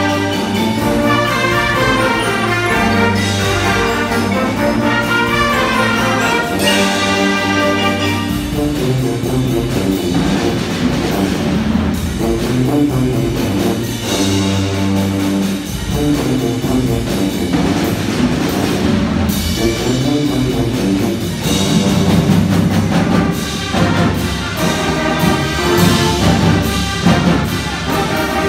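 High school marching band playing: brass and sousaphones sounding full sustained chords over front-ensemble percussion, with the music moving into new passages a few times.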